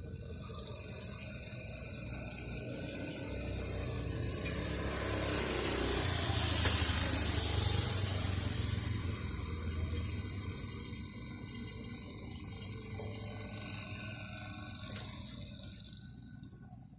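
Gas hissing through an air conditioner's service valve and hoses: a rushing hiss swells over a few seconds, then slowly dies away and stops near the end, over a low steady hum.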